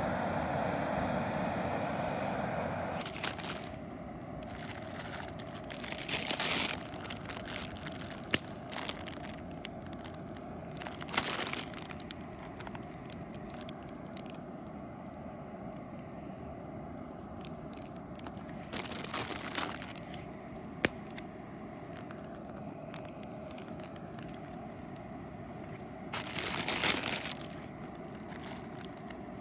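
Several separate bursts of crinkling and rustling, with a couple of sharp clicks, over a steady low hum.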